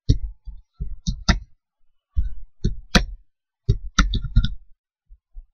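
Typing on a computer keyboard: about a dozen irregular key clicks, each with a dull thud, as a web address is typed in. The keystrokes thin out and stop after about five seconds.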